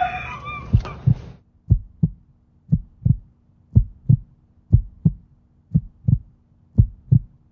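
Heartbeat sound effect: pairs of low thumps, lub-dub, about one beat a second, over a faint low hum.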